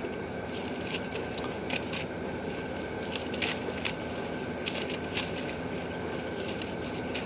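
Steady rain, with scattered sharp taps of drops landing close by.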